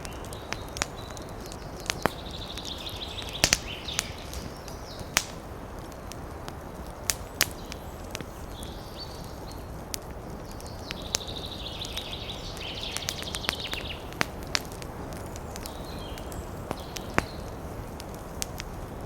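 Outdoor natural ambience: a bird trills in two spells of fast pulsed chirping, over a steady background hiss with scattered sharp clicks and cracks.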